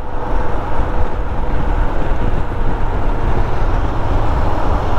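Royal Enfield Himalayan's single-cylinder engine running at a steady cruise, mixed with a steady low rumble of wind and road noise on the rider's microphone.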